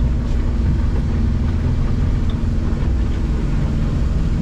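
Yamaha F150 four-stroke outboard running at a steady cruising speed, mixed with hull and water noise, heard from the helm of the moving boat.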